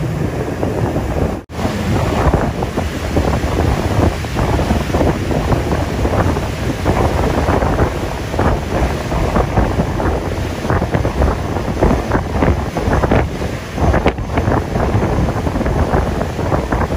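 Wind buffeting the microphone over the rushing, churning water of a moving boat's wake. The sound cuts out for an instant about a second and a half in.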